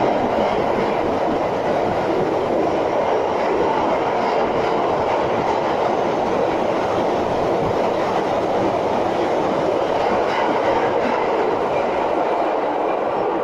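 Toei Shinjuku Line express train passing through an underground station at speed without stopping: a loud, steady noise of its wheels running on the rails, echoing off the station walls.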